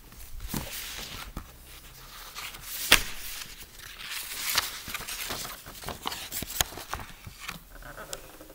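Handling noise of an acoustic stringed instrument being picked up and brought into playing position: irregular knocks, clicks and rustles, with the sharpest knock about three seconds in.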